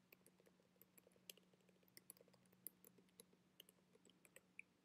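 Faint typing on a computer keyboard: light, irregular key clicks over a faint steady low hum.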